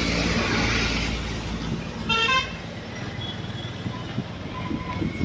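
Road traffic with a low engine rumble, and a vehicle horn tooting briefly about two seconds in.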